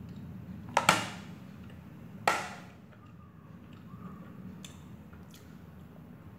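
Metal fork striking a plate: a quick double clink about a second in and another sharp clink just after two seconds, each ringing out briefly, then a few faint taps.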